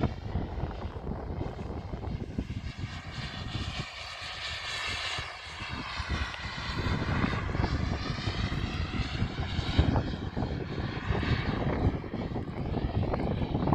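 Small gas turbine of a radio-controlled model jet whining as the plane flies past and turns, its high pitch bending down and up as it passes, over a gusty low rumble.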